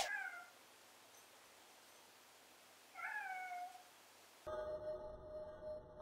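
A cat meows twice: the end of one call just after a sharp click at the very start, and a short call that rises and then falls in pitch about three seconds in. Background music comes in about a second and a half before the end.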